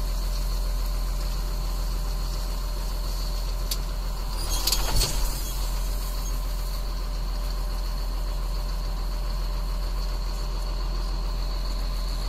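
John Deere 6620 tractor's six-cylinder diesel engine running steadily, heard from inside the cab, with a thin steady high whine over it. A short burst of clatter comes about four and a half seconds in.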